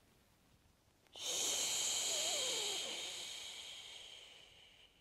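A woman's long, hissing 'shhh' out-breath, the liver sound of the Taoist six healing sounds. It starts abruptly about a second in and fades away slowly over the next four seconds.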